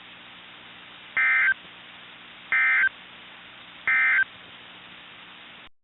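Emergency Alert System end-of-message signal: three short, identical bursts of SAME digital data tones, each about a third of a second long and spaced about 1.4 seconds apart. A faint steady hum and hiss lies underneath and cuts off near the end.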